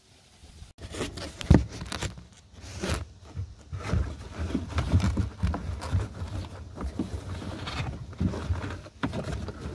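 Irregular rustling, scraping and small knocks of nylon webbing straps and a plastic buckle being worked by hand behind a kayak seat, with handling noise close to the microphone.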